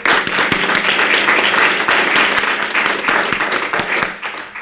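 Audience applauding: many hands clapping together, tailing off near the end.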